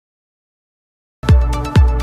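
Silence, then a little over a second in, electronic dance music starts: a deep kick drum that drops in pitch, about twice a second, over sustained synth notes.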